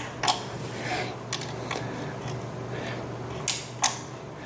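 Irregular metal clicks and ticks of an Allen key being wiggled into and turned in a furniture bolt, about six in all, two of them close together near the end, over a low steady hum.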